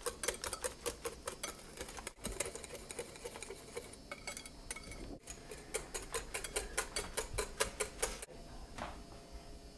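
Wire whisk beating thin pancake batter in a glass bowl: fast, even clicking and tapping of the wires against the glass, several strokes a second. It stops near the end.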